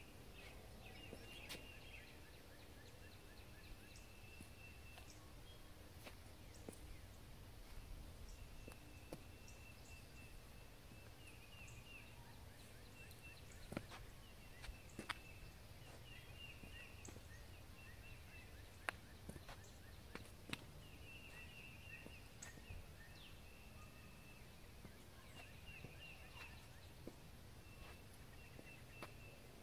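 Faint outdoor quiet with a songbird repeating short, even trills of about a second each, every few seconds, and a few scattered sharp clicks or taps.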